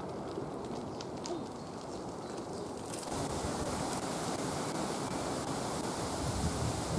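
Woodland ambience of wind in the trees and rustling leaves, with a few faint clicks in the first second or so. About three seconds in it turns brighter and hissier, and near the end wind buffets the microphone with low rumbling bumps.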